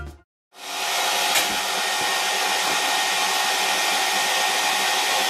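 Music cuts off, and after a brief gap a small electric motor with a fan starts up about half a second in. It runs steadily, with a constant whir and a rushing airflow hiss.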